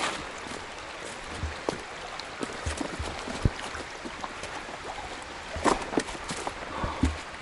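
Steady rushing of a mountain stream, with scattered sharp knocks and crunches over it, the strongest a little before six seconds in.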